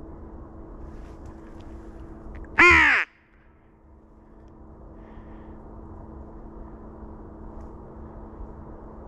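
A single loud, harsh crow caw about half a second long, a little under three seconds in, over a steady faint low hum.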